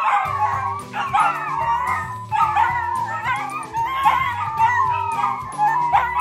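Two long-haired dachshunds howling together in wavering, overlapping cries, the sound of dogs left alone when their owner steps out. Background music plays underneath.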